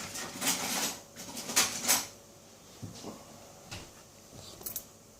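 Metal clinking and rattling as a padlock and picking tools are handled, busy for about two seconds, then a few faint clicks and taps.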